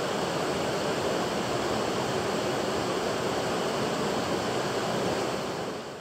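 Steady rushing of whitewater river rapids, fading out near the end.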